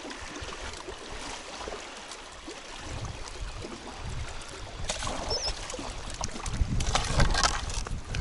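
Water splashing and sloshing under gusty wind buffeting the microphone, with several sharp splashes in the last few seconds as a hooked bream is brought in.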